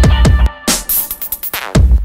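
Electronic dance music with a heavy beat: hard drum hits, deep bass and falling synth sweeps.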